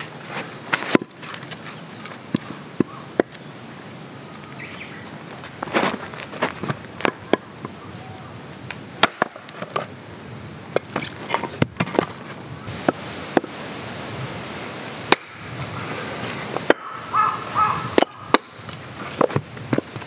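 Hatchet blows splitting firewood into kindling on a wooden chopping block: sharp, irregular knocks and cracks of steel into wood, with split pieces clattering down. Small birds chirp in short high runs in the background.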